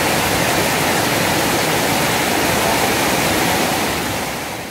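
Water cascading over a small river waterfall into the shallow pool below, a steady rushing that fades out near the end.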